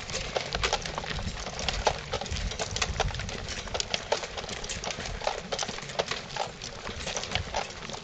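Footsteps of a crowd walking on a sandy gravel track: a dense, irregular run of short crunches and knocks.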